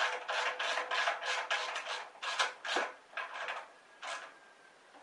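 Screwdriver turning a screw into the sheet-metal flywheel cover of a Briggs and Stratton 12.5 HP flathead engine: a fast run of short scraping strokes, about four a second, that thins out after about three seconds into a few last strokes.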